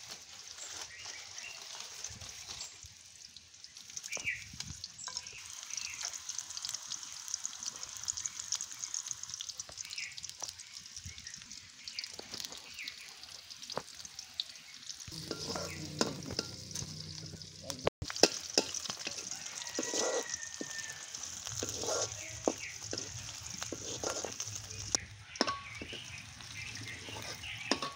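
Sliced onions frying in oil in a black wok over a wood-fired clay stove, with a steady sizzle. Scattered clicks and knocks from the utensils run through it, more of them in the second half.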